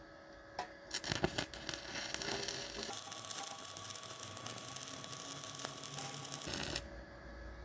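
Stick (SMAW) electrode arc welding powered by a JASIC NovoArc 200K inverter welder. The arc sputters with scattered crackles at first, then settles into a steady dense crackling sizzle about three seconds in. It cuts off suddenly near the end as the arc is broken.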